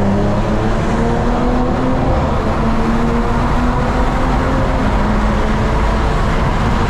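BMW M340i's turbocharged inline-six engine running steadily under load, its note rising slowly in pitch as the car pulls.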